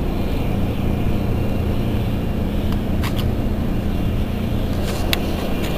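Truck engine running steadily with a low hum, with a few light clicks about three and five seconds in.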